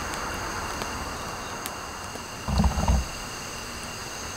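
Wood campfire crackling with occasional sharp pops, over a steady high chirring of insects. A brief low-pitched sound, the loudest thing, comes about two and a half seconds in.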